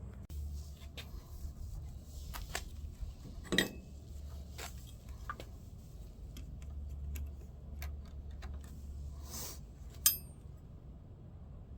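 Small metal parts and tools clinking and knocking as they are handled, with two louder clacks, one about a third of the way in and one near the end, over a steady low hum.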